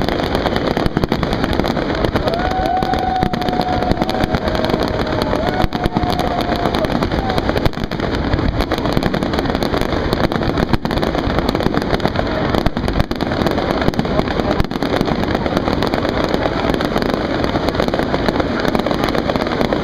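Fireworks display going off without pause: a dense run of bangs and crackling from many bursting shells and cakes. A held whistle-like tone sounds over it for a few seconds near the start.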